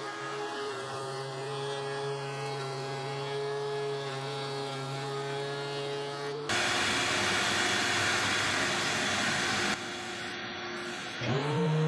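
DeWalt DW735 thickness planer running with a steady motor whine; about halfway through, a louder rushing noise lasts about three seconds as a 2x4 is planed, then the machine drops back to its plain running note. Near the end a motor spins up with a rising whine.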